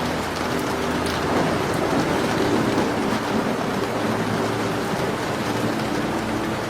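Steady rain, with a few faint fireplace crackles ticking over it and a low rumble swelling briefly about a second and a half in.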